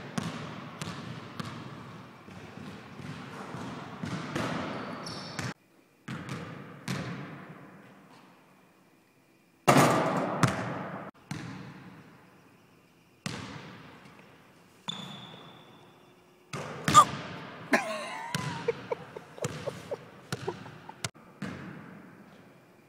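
A basketball bouncing on a hardwood gym floor, a string of sharp thuds, each ringing on in the big hall. The sound breaks off and restarts abruptly several times.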